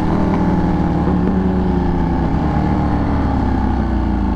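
Ducati 1199 Panigale's 1198 cc Superquadro V-twin engine running under way, heard with a low rush of riding noise; its pitch eases steadily downward over the last couple of seconds as the revs drop.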